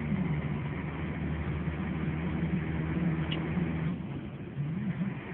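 Truck engine running while driving, heard from inside the cab: a steady low drone whose pitch wavers up and down. It eases off briefly about four seconds in.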